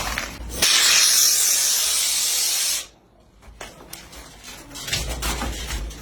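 A loud, steady spray-like hiss of air or gas lasting about two seconds, starting and stopping abruptly, followed by quieter knocks and handling noise.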